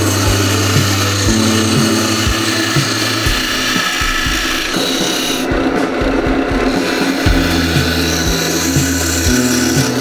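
Hand turning tool cutting a spinning walnut blank on a Mastercraft wood lathe: a continuous scraping hiss of steel on wood, with background music underneath.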